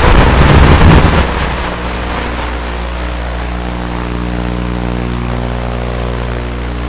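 QX80 micro FPV quadcopter's brushed motors and propellers whining at a steady pitch. A louder rushing surge comes in the first second or so.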